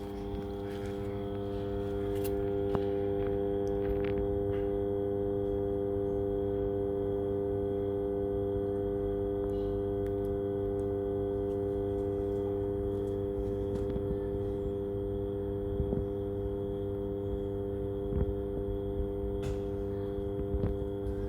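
Transformer substation humming loudly: a steady electrical hum made of several pitched tones at once, growing slightly louder about two seconds in.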